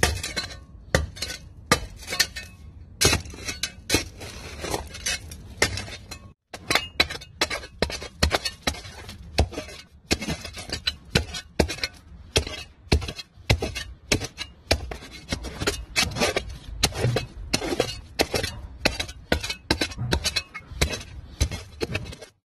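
A steel pointed shovel digging into rubble-filled ground: repeated sharp clinks, knocks and scrapes as the blade is driven into broken brick and gravel.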